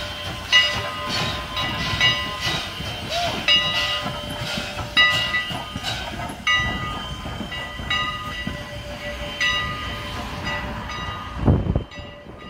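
Steam passenger train moving slowly past while a bell rings in steady, evenly spaced strokes, a little faster than one a second. A brief low thump comes about a second before the end.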